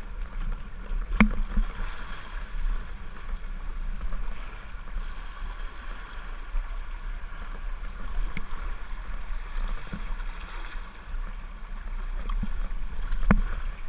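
River water rushing and splashing around a whitewater kayak as it is paddled downstream, with two sharp knocks, one about a second in and one near the end.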